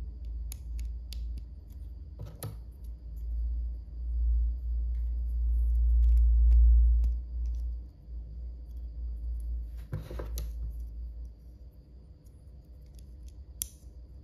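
Small plastic Lego bricks handled and pressed together by fingers: scattered light clicks, with clusters about two seconds in and again around ten seconds. A low rumble swells through the middle and is the loudest sound.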